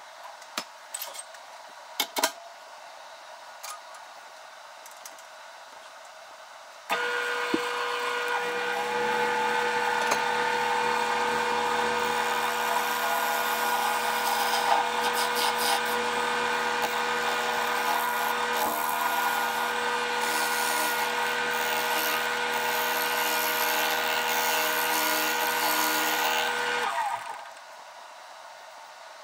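A few clicks and knocks as the cherry blank is handled on the lathe. Then the wood lathe starts with a steady motor whine while a gouge cuts the spinning blank with a rough, scraping noise. Near the end the lathe winds down and stops.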